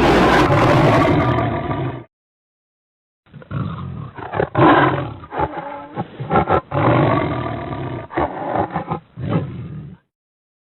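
Designed King Kong giant-gorilla roar sound effects. A loud roar stops about two seconds in. After a short pause comes a longer run of roars and growls broken into uneven bursts, which stops shortly before the end.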